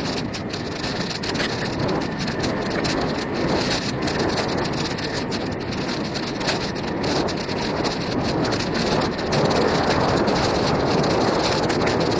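Mountain bike rolling over a dirt forest trail: a continuous rumble and rattle of tyres on the ground and the bike and camera mount shaking, mixed with wind rushing over the camera's microphone, getting a little louder about nine seconds in.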